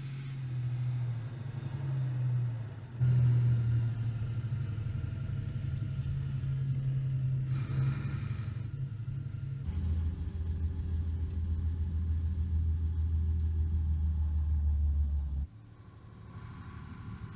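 Heavy lorry engine running at low revs. Its drone changes abruptly about three and ten seconds in, with a brief rushing noise near the middle, then drops to a faint hum near the end.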